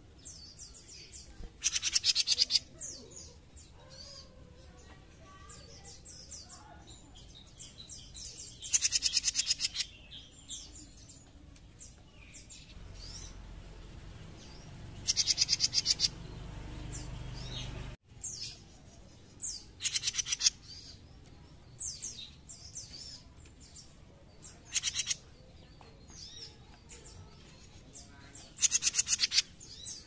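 Caged jenggot mini songbird singing in loud bursts of very fast, rattling chatter, each under about a second long, coming every few seconds. Softer single notes and short phrases fall between the bursts.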